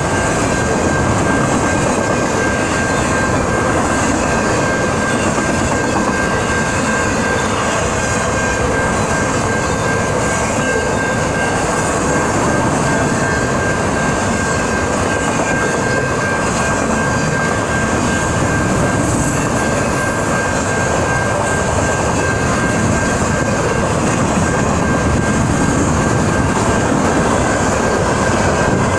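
Train passing close by, a loud steady run of wheels on track with a thin high tone held throughout.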